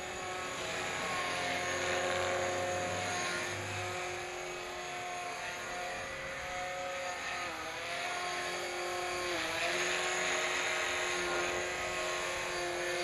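Electric 450-size RC scale helicopter (Rotorscale AS350) in flight: a steady whine of the motor and rotors, its pitch dipping briefly twice past the middle as the helicopter manoeuvres.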